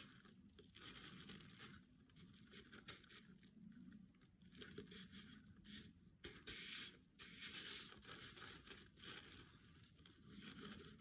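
Faint, irregular rustling and crinkling of tissue paper as it is handled and smoothed onto a glue-coated plastic jar.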